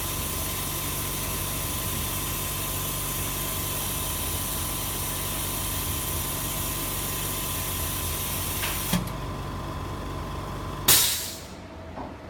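A flex-cable laminating machine running steadily: a hiss with a held whine and a low hum. Near the end a short, loud burst of hiss marks a release, after which the machine noise drops sharply.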